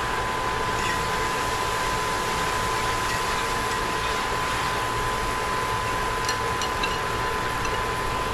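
Hot frying oil sizzling steadily in a skillet as flour is worked into it for a gravy roux, with a few light clicks of a fork against the pan about six to seven seconds in. A steady high-pitched tone runs underneath.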